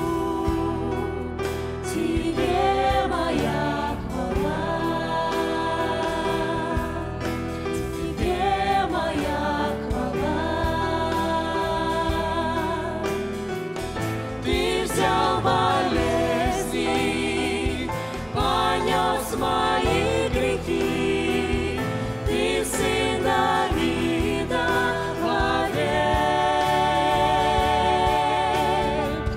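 Mixed church choir and worship team singing a Russian-language worship song in parts, accompanied by acoustic guitar and keyboards.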